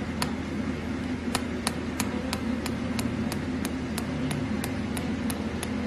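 Laser handpiece firing pulses with a sharp click each shot, about three a second in an even rhythm, over the steady hum of the laser unit.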